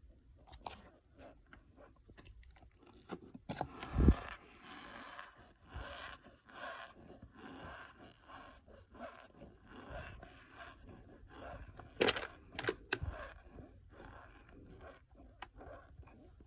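Dry cornstarch being squeezed and crunched, giving an irregular squeaky crunching with a few sharp cracks, the loudest about four seconds in and again around twelve seconds.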